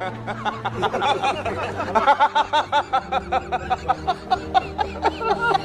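Rapid, rhythmic laughing sound effect, a quick run of short pitched "ha" syllables about five a second, over background music with low held notes.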